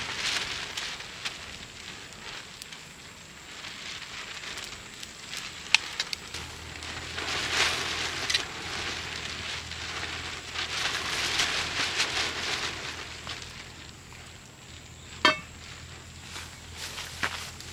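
Wood campfire crackling and hissing, the hiss swelling and fading, with scattered sharp pops. About fifteen seconds in there is one brief, sharp pitched sound, the loudest moment.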